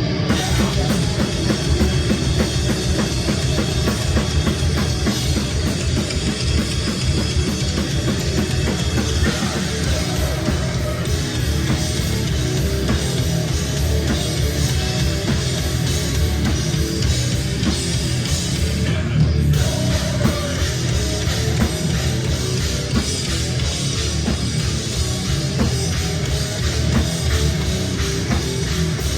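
Live hardcore band playing loud and fast: distorted electric guitars, bass and a pounding drum kit, recorded through a single on-site microphone.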